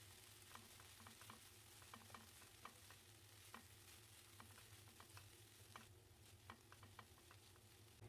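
Faint, irregular small clicks and taps of food preparation, several a second, over a steady low hum.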